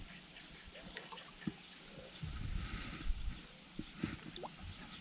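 Faint light splashing and dripping water from a small jundiá catfish being fought on the line at the surface, with gusts of wind rumbling on the microphone and scattered faint high ticks.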